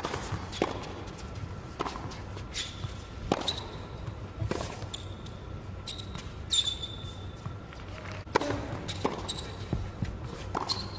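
Tennis ball being bounced and struck on an indoor hard court, a string of sharp knocks spaced a second or more apart, with a few short high squeaks in between, echoing in a large hall.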